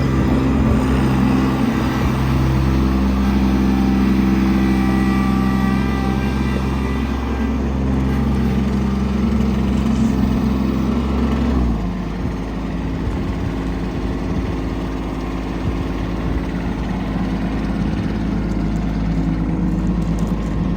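Kubota LX2610 compact tractor's three-cylinder diesel engine running steadily. About twelve seconds in, its sound drops to a lower, slightly quieter steady running.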